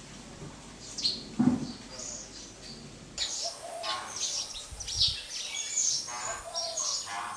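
Small birds chirping, many short high calls overlapping, busier in the second half. A brief low thump about a second and a half in.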